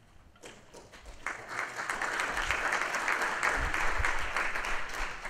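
Audience applauding: scattered clapping starts about half a second in and swells into a full, steady round.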